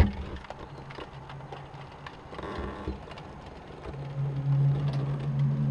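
Sharp click at the start, then an unexplained low, steady droning hum heard outdoors, swelling louder about four seconds in with a few higher tones above it: the recurring 'strange sound from the sky' kind of noise.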